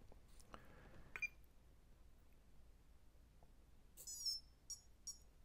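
Faint start-up tones of a brushless speed control, played through its motor on power-up: a quick stepped chime about four seconds in, then short beeps, the sign that the electronics have powered up and are arming. A small click comes about a second in.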